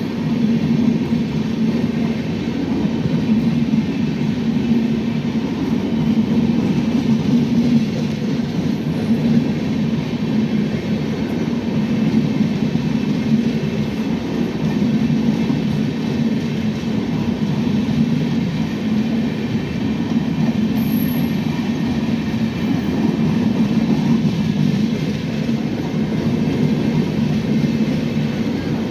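Indian Railways LHB passenger coaches rolling past on the adjacent track: a steady, unbroken rumble of wheels on rail.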